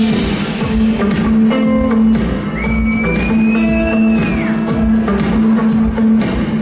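Live band playing electronic pop on drums, guitar and keyboards over a steady held bass note, with a high gliding tone rising and falling about midway.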